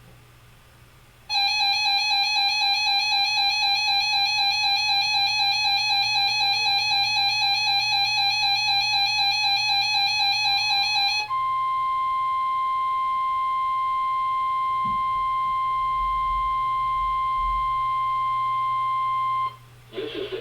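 A weather alert radio's alarm sounds as a loud, buzzy, warbling tone for about ten seconds. It then switches to the steady 1050 Hz NOAA Weather Radio warning alarm tone of a weekly tone-alert test, which holds for about eight seconds and cuts off suddenly.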